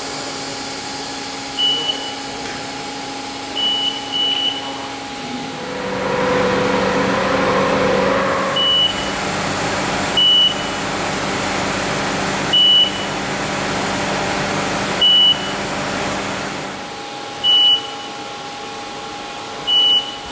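LK G90C CNC coordinate measuring machine running, with a steady hum and a motor whine that rises and wavers while its axes move for several seconds. Short high beeps come about every two to three seconds.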